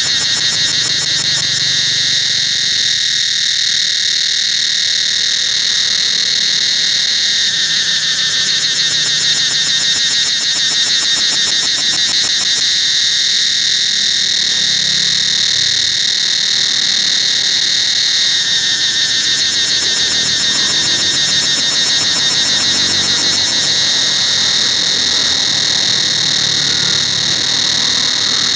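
Cicadas singing in a dense chorus: a loud, steady, high-pitched buzz with a fast pulsing texture, its pitch shifting slightly a couple of times.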